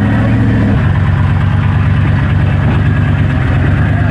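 Modified Jeep Wrangler JK's engine working hard, its revs dropping about a second in and then holding steady.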